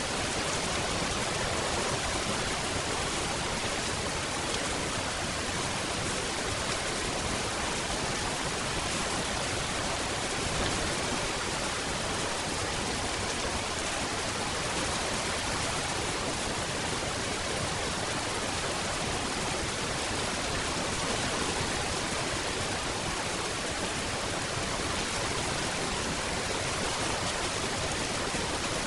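Steady rain falling, an even hiss that does not change in level or character.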